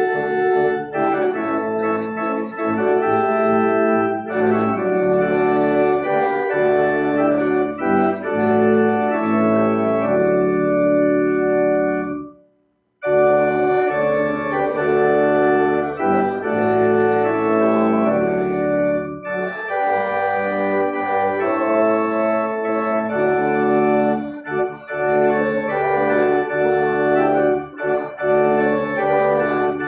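Organ playing a hymn in sustained, full chords that change every second or so, with a brief complete break about twelve seconds in before the music picks up again.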